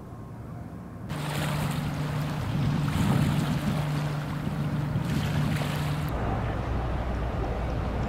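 Outdoor wind and water noise with a steady low hum underneath, which gets louder about a second in and changes abruptly again about six seconds in, where the hum drops lower and the hiss softens.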